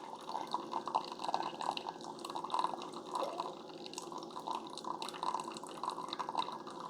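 Keurig K-Supreme Plus Smart pod coffee maker brewing: hot coffee trickling and splashing into the cup in a continuous irregular patter, over a faint steady hum.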